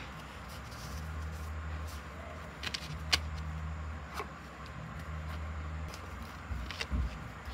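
A low steady hum that drops out briefly now and then, with a few sharp clicks and taps about three and four seconds in and a couple more near the end.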